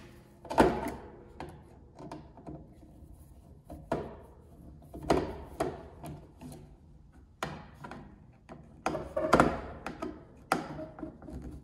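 Screwdriver working the screws out of a plastic BG weatherproof socket outlet, with several scattered clicks and knocks as the housing is handled on a stainless steel worktop.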